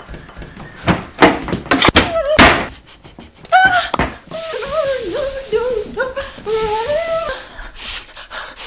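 A quick run of sharp knocks and thuds, like a board and plate being handled hard. About three and a half seconds in, a woman makes wordless vocal sounds, a wavering hum that rises and falls for several seconds.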